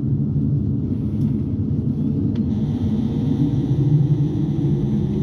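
Saab 340B turboprop engine start heard from inside the cabin: a steady low rumble, with a whine that begins rising slowly in pitch about halfway through as an engine spools up.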